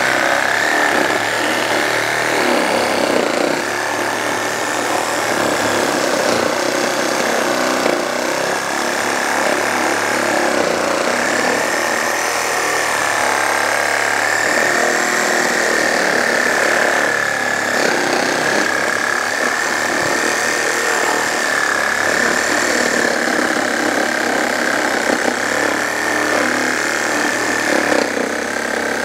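JLD cordless reciprocating saw running continuously with its toothed wood blade cutting through a thick block of wood. It makes a steady, high motor whine that wavers slightly in pitch as the blade loads, over the rasp of the cut.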